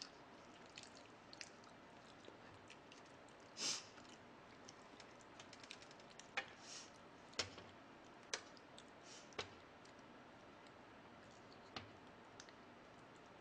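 Quiet eating sounds: chopsticks click now and then, about a dozen scattered clicks as meat is picked off pork bones in a metal tray of gamjatang. About four seconds in there is one short, louder hiss-like burst.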